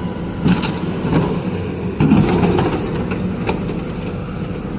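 Heavy machine's engine running steadily, with a few sharp clanks and knocks over it, the loudest about two seconds in.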